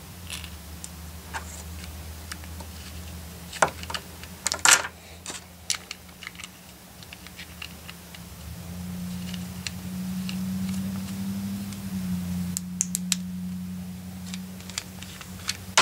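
Hands handling the small parts of a scope-mounted light and laser kit: a scattering of small clicks and taps, loudest about four to five seconds in, over a steady low hum that swells between about eight and twelve seconds in.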